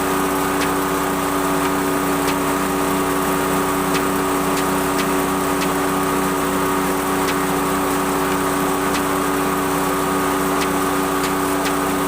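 Motorcycle engine driving a grass chopper, running steadily at an even speed.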